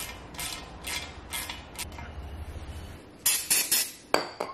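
Small metallic clicks from fitting the 10 mm bolt that holds the intake air sensor onto an aluminium intercooler's end tank, about two a second at first. Later comes a quick cluster of clicks and a single sharp knock near the end.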